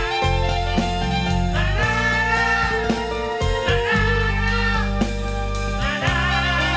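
Band music with guitar over a steady beat, with a wavering melody line coming in and out.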